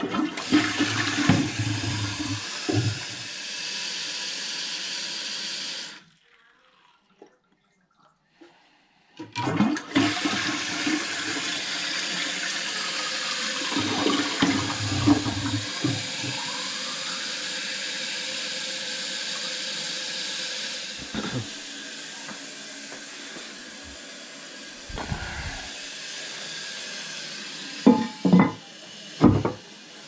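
Toilet flushing with its tank lid off: water rushes from the tank into the bowl, then the tank refills through a newly fitted Fluidmaster fill valve with a steady hiss that drops lower after several seconds. The flush is heard twice, with a break of near silence between. A few sharp knocks come near the end as the porcelain tank lid is set back on.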